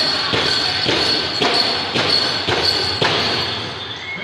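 Powwow drum struck in a steady beat, a little under two strokes a second, for dancers; the beats stop about three seconds in and the sound falls away.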